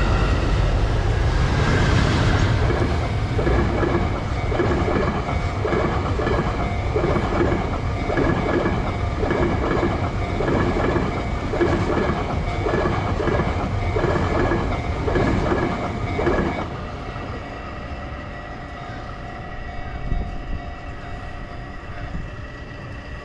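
Electric locomotive towing unpowered new Tobu Spacia X (N100 series) cars across a steel girder railway bridge: a steady rumble with a regular clickety-clack of wheels over rail joints. The clatter stops about two-thirds through as the last car clears the bridge.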